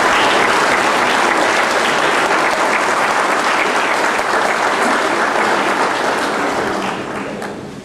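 Audience applauding, steady and dense, dying away near the end.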